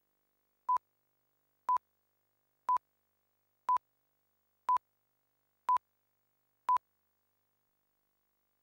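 Countdown leader beeps: seven short beeps of one steady pitch, one each second, marking off the seconds before the programme starts.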